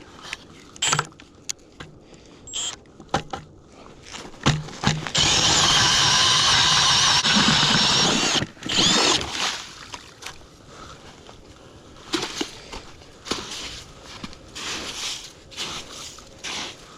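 Power ice auger running for about three seconds, boring a new hole in the ice, with scattered knocks and clatter of gear being handled before and after.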